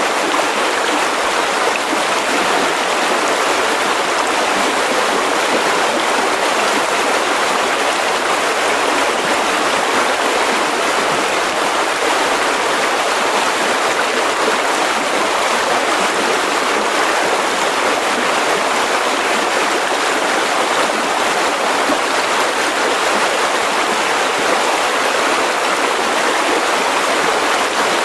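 Mountain river rushing over rocks, a steady even rush of flowing water.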